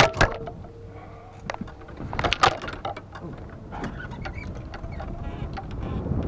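Golf clubs knocking and rattling in a golf bag on a golf cart, with sharp knocks near the start and about two and a half seconds in, then the cart's rumble building as it moves off.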